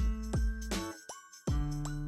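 Background music: bright, bell-like notes over a low bass, with a short break about a second and a half in before the next phrase starts.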